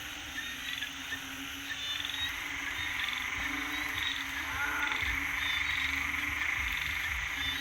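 A chorus of frogs calling after rain, with many short, repeated croaks overlapping over a steady high-pitched background drone.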